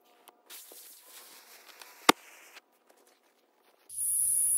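Proof-test shot of a homemade .40 calibre black-powder pistol barrel loaded with a double charge of FFFg powder and two balls: a fuse hisses for about two seconds, then a single sharp bang about two seconds in. Near the end comes a loud, steady, high hiss.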